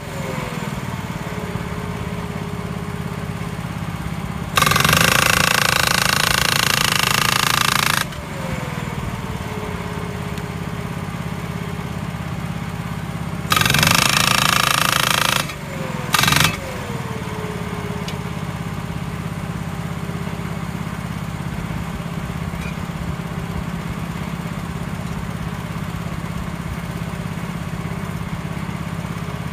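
Atlas Copco LPD-T hydraulic post driver hammering a round wooden fence post in three loud bursts: about three seconds starting some four and a half seconds in, about two seconds around the middle, and a brief one just after. Under it the hydraulic power pack's engine runs steadily, and a tone slides down in pitch after each burst as the driver stops.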